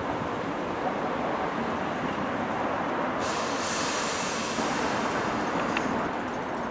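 A Class 455 electric multiple unit pulling slowly into the platform, its wheels rumbling steadily on the rails, with a hiss from about three seconds in that lasts a few seconds.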